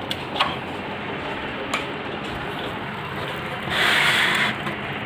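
Handling noise over a steady hiss: a couple of light clicks, then a brief rubbing scrape about four seconds in.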